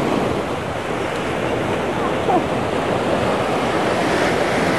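Ocean surf washing onto the beach, a steady rushing wash, with wind buffeting the microphone.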